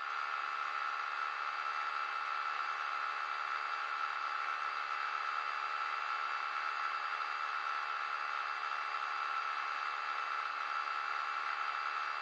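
Steady high-pitched motor-and-propeller drone heard from an aircraft in flight, one unchanging tone over a rushing noise. It starts suddenly at the start.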